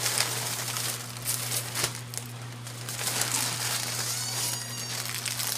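Plastic packaging bags crinkling and rustling as they are handled, with a few brief high squeaks about four seconds in.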